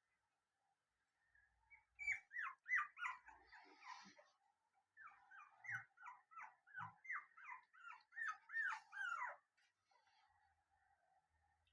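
A dog whimpering: a run of short, high whines, each sliding down in pitch, about two a second, starting about two seconds in, with a brief pause in the middle, and stopping shortly before the end.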